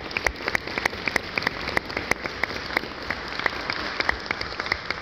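Audience applauding, a dense patter of many hands, with sharp individual claps from someone close by standing out several times a second.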